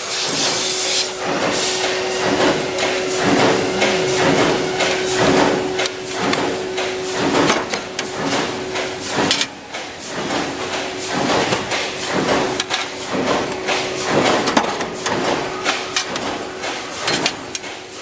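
Metalworking shop noise around a flywheel punch press stamping metal lock faceplates: many irregular metallic clanks and knocks over a steady machine hum, which drops out briefly around the middle.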